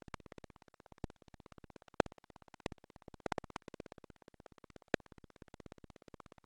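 Faint, rapid, evenly pulsing buzz that the tagger hears as distorted music, with a few sharp clicks; the loudest click comes about two seconds in.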